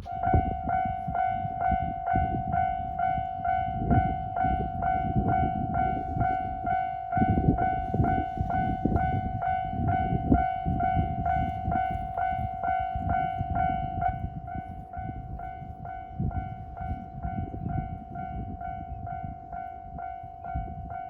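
Japanese railway level-crossing electronic warning bell ringing a steady, rapid ding-ding about twice a second, with a train rumbling through the crossing underneath, loudest in the middle.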